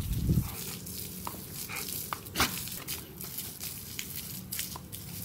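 Garden hose jet spattering with a steady hiss on a Rottweiler and the wet concrete, with scattered sharp splats and clicks as the dog bites at the stream. A louder low splash comes in the first half second.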